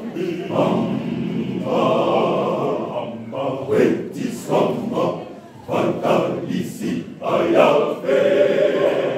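Men's church choir singing together under a conductor, with long held notes between shorter phrases.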